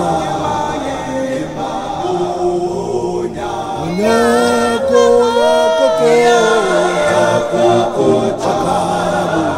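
Gospel choir of male voices singing a cappella in several-part harmony, with long held chords.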